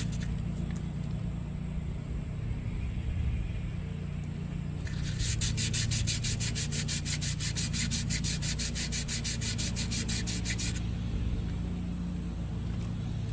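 Fine sandpaper rubbed by hand in quick back-and-forth strokes along the bead seat of a wheel rim, smoothing rust and grime so the tire will seal. The strokes are soft at first and get faster and louder from about a third of the way in until near the end.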